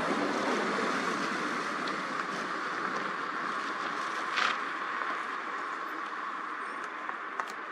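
Steady rushing background noise, with a brief rustle about four and a half seconds in.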